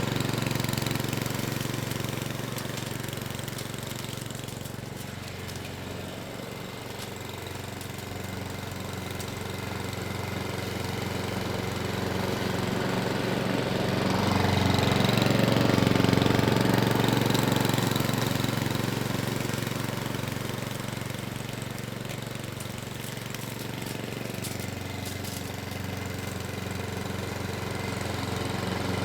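Petrol rotary lawnmower running steadily on its 132cc Webb OHV four-stroke engine. The engine note grows louder toward the middle, then fades again.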